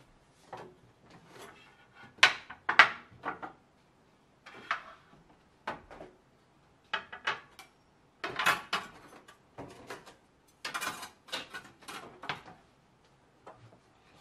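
Metal kitchen utensils (stainless measuring cups, a whisk) clinking and clattering as they are gathered up from a stainless-steel countertop: a run of irregular knocks, the two loudest about two to three seconds in.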